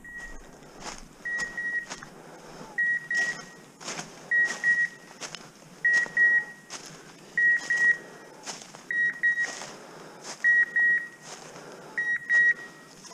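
A hunting dog's beeper collar: pairs of short high beeps repeating steadily about every second and a half, with scattered faint crackles in between.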